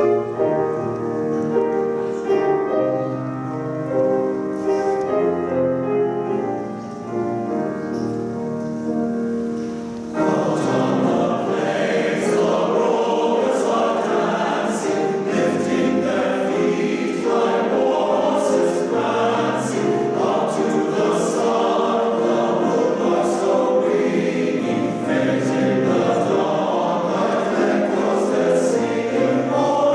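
Men's chorus singing a Christmas carol. The sound swells suddenly about ten seconds in, as the full chorus comes in louder and fuller.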